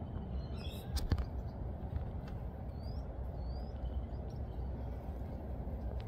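Outdoor background ambience: a steady low rumble, a couple of sharp clicks about a second in, and two short rising bird chirps about three seconds in.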